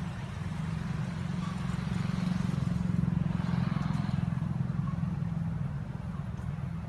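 Low engine rumble of a passing motor vehicle, swelling to its loudest about three seconds in and then easing off.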